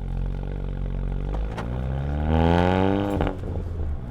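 VW GTI Mk7's turbocharged 2.0-litre four-cylinder with an APR downpipe, heard without the Soundaktor's added sound, accelerating: the engine note runs steady, climbs for about a second and a half, then drops sharply about three seconds in.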